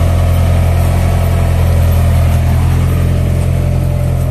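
Yanmar combine harvester's diesel engine running steadily, heard close up beside the machine.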